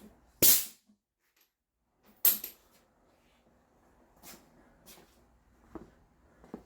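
Two loud clunks about two seconds apart, then a few fainter knocks: equipment being handled and put away.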